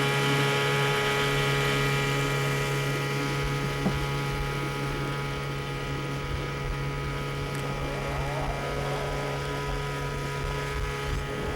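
Boat engine running at a steady speed, a constant droning hum that begins abruptly and holds unchanged.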